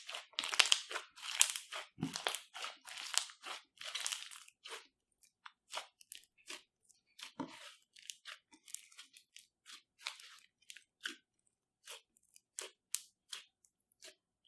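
Clear slime loaded with glitter being squeezed and worked by hand, giving wet crackling and clicking pops. The crackling is dense for about the first five seconds, then thins to scattered single pops.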